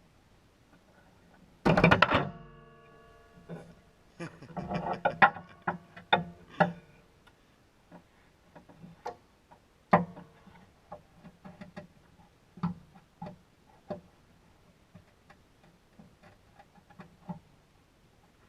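Metal hand tools and parts clanking and clicking: a loud metallic clank about two seconds in that rings on briefly, a run of smaller clanks and rattles a few seconds later, then scattered sharp clicks.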